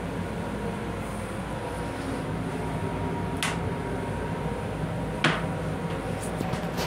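Steady hum of the M7 railcar's interior and ventilation. A sharp click comes about three and a half seconds in, then a louder clack about five seconds in, as the black plastic toilet seat is taken by hand and lowered onto the stainless-steel bowl.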